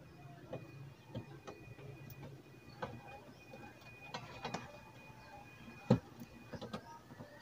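Faint scattered clicks and handling noise of a small plastic wire connector and its cable being fitted into a TV main board's socket, with one sharper click about six seconds in.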